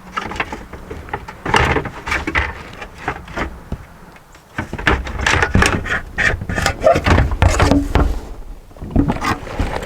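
Plastic knocking, clicking and scraping as a stock fog light housing is worked loose and pulled out through the back of a pickup's front bumper. The knocks come irregularly, with a short lull about four seconds in, then grow busier.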